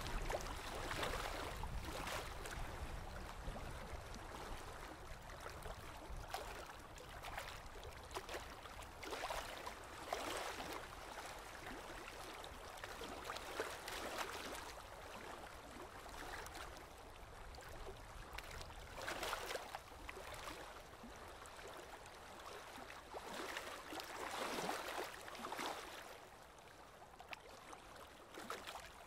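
Small river waves lapping and splashing near the microphone in irregular surges every few seconds, over a low steady rumble.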